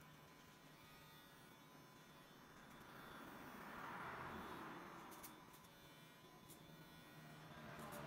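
Electric hair clippers running faintly as they cut over a comb, growing louder in the middle and fading again.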